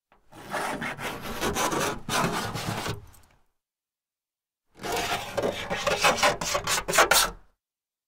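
Glass being scratched: two scraping passes of about three seconds each, the second broken into a run of quick separate strokes.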